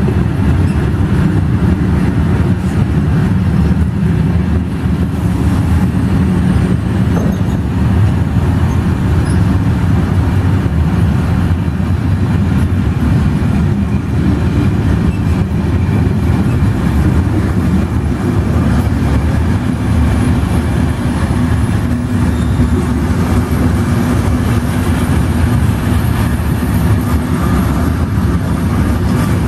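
Freight train of covered sliding-wall wagons rolling past close by: a loud, steady noise of steel wheels on rails that does not let up.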